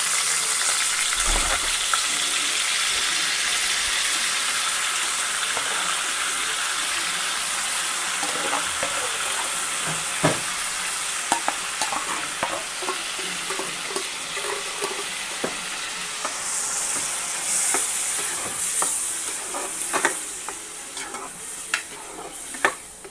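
Wet ground onion-and-tomato paste sizzling hard in hot oil in an aluminium pressure-cooker pot, with the clicks and scrapes of a spoon stirring it against the metal from about a third of the way in. The sizzle eases near the end.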